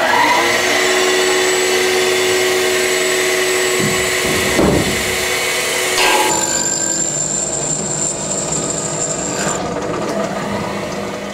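Small CNC milling machine's spindle motor just started and running at speed: a loud, steady machine whine with several held tones. About six seconds in the sound changes and a high thin whine comes in, stopping shortly before the end.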